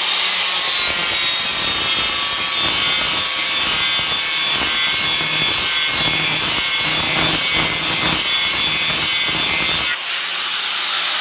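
A 4-inch Makita angle grinder with a worn sanding disc runs at full speed against a cast iron skillet, grinding down the rough casting texture, with a steady whine over the rasp of the disc on the iron. About ten seconds in the disc comes off the pan and the grinder runs free.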